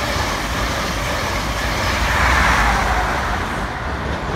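LNER express passenger train passing close at speed: a loud, steady rush and rumble of wheels on rail and air, swelling about two seconds in and dropping away near the end.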